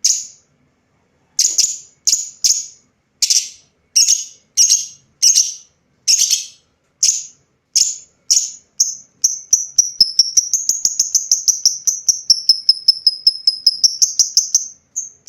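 Lovebird giving sharp, shrill chirps, spaced about a second apart at first, then speeding up about nine seconds in into a fast, even run of about six chirps a second.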